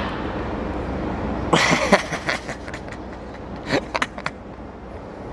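A man laughing and hollering in short bursts, with a few sharp clicks and a steady low rumble beneath.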